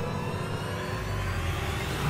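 Edited-in whoosh sound effect: a steady rumbling hiss that rises in pitch over its last second.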